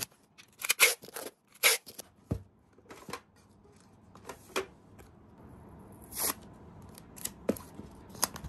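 Hands handling a cardboard shipping box wrapped in packing tape: a string of short scrapes, rustles and taps, with a dull thump a little past two seconds, and a sticker peeled and pressed onto the taped box near the end.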